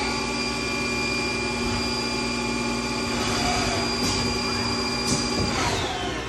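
Haas ST-20 CNC lathe running with a steady multi-tone electric whine from its spindle drive, which winds down in pitch about five and a half seconds in as the spindle slows to a stop.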